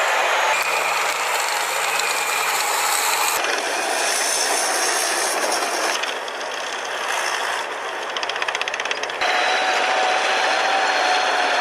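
Tracked armoured vehicles running: engine noise and clanking track rattle, changing abruptly several times as short clips are cut together, with a fast rattling stretch a little past the middle.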